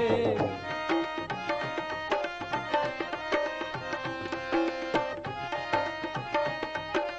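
Instrumental interlude between sung verses: a harmonium plays held notes and a melody over a steady hand-drum rhythm.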